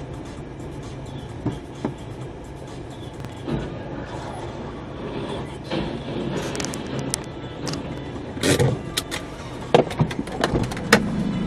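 Steady road and engine noise inside a moving car, then a run of sharp bangs and knocks in the last three seconds.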